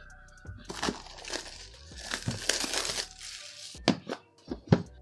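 Plastic wrapping being torn and crinkled off a cardboard smartphone box, then a few sharp clicks and knocks near the end as the box is opened.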